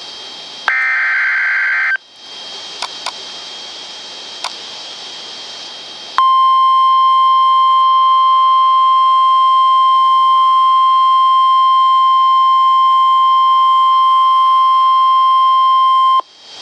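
NOAA Weather Radio emergency alert. A short burst of shrill warbling SAME data tones comes about a second in, followed by a few seconds of radio hiss with some clicks. Then the steady 1050 Hz warning alert tone sounds for about ten seconds; it signals that a warning broadcast follows.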